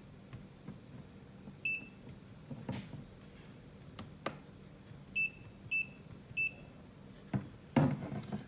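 Digital multimeter giving short high beeps as its buttons are pressed to switch on the backlight: one beep, then three in quick succession a few seconds later. Light handling clicks run through it, with a louder knock near the end.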